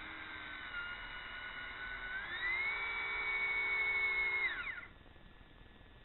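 Electric drill boring a 32 mm hole into the end grain of a wooden log round with an auger bit. The motor whines steadily, rises in pitch and gets louder about two seconds in, then winds down and stops about four and a half seconds in.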